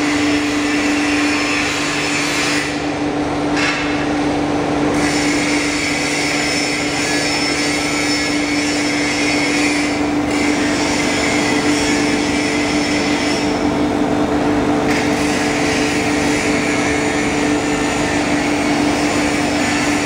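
Foam splitting machine running steadily while slicing memory foam into thin 2 mm sheets: a constant hum under a noisy whirr.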